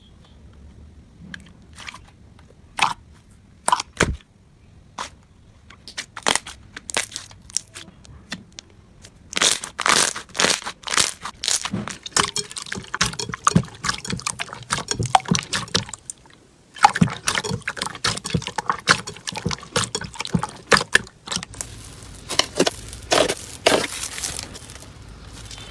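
Slime being squeezed and pressed by hand, making sticky pops and crackles: scattered single pops at first, then dense crackling from about nine seconds in, with a short pause about two-thirds of the way through.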